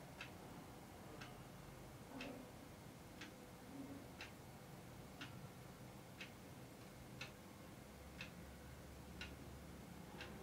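A clock ticking faintly, one tick a second.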